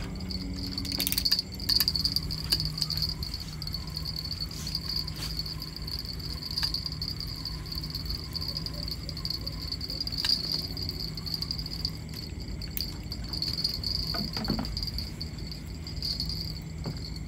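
Insects chirring steadily in a high, even tone, with a low steady hum beneath and a few sharp clicks a second or two in.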